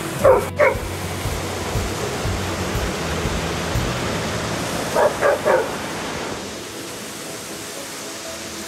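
A dog barking, twice just after the start and three times about five seconds in, over the steady rush of a creek and small waterfall.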